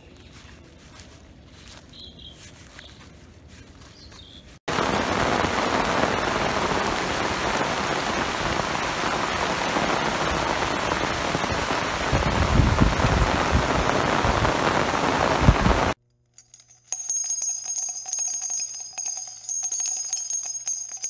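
Heavy rain falling on broad taro leaves: a loud, steady hiss that starts abruptly a few seconds in, with a deeper rumble underneath for a few seconds. It cuts off, and a short jingling bell tune plays near the end.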